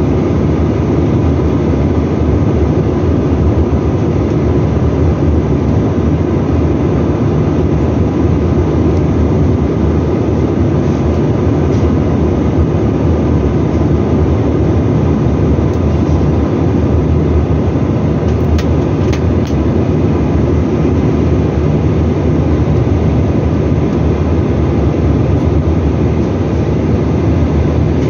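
Steady cabin noise inside a Bombardier CRJ900 airliner in flight: a low-pitched rush of airflow and the rear-mounted GE CF34 turbofan engines, with a faint steady tone over it. A couple of faint ticks come about two-thirds of the way through.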